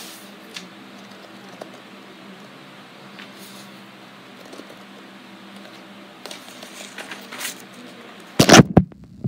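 Kinetic sand being cut and pressed underfoot, making faint soft crunching and squishing, then a few loud thumps near the end.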